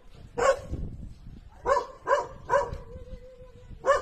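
A dog barking in short, separate barks, about five of them, with a fainter drawn-out whine between the later barks.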